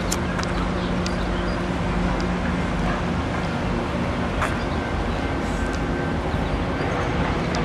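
Steady mechanical hum with a low drone under a wash of outdoor background noise, and a few faint clicks.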